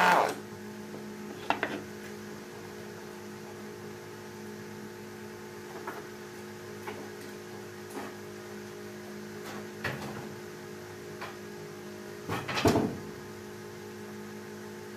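A gas chainsaw engine cuts off at the very start, its sound dying away within a fraction of a second. After that a steady low hum remains, broken by a few scattered light knocks and clatters, the loudest cluster about twelve and a half seconds in.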